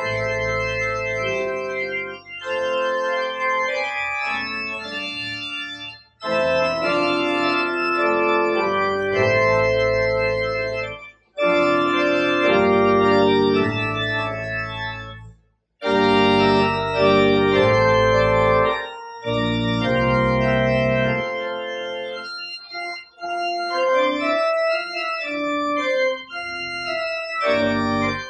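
Church organ playing sustained chords in slow phrases, breaking off briefly between phrases three times.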